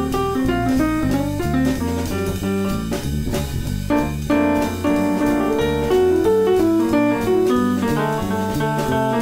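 Background jazz music with drums, piano and guitar.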